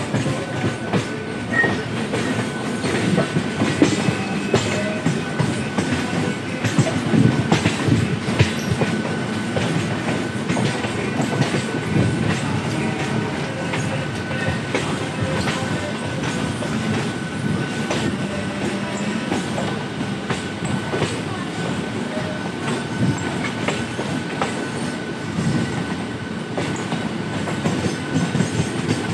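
Running noise of a suburban electric multiple-unit train heard from on board: a steady rumble with wheels clattering over rail joints and points, and a thin steady whine above it.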